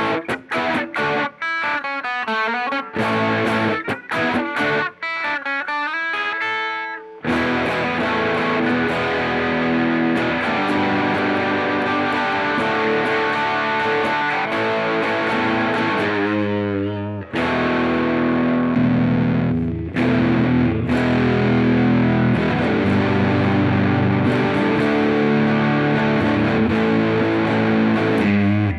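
Squier Paranormal Cyclone electric guitar played through an amp. It starts with separate picked notes and short phrases with gaps, then from about seven seconds in plays a steady run of distorted, sustained chords.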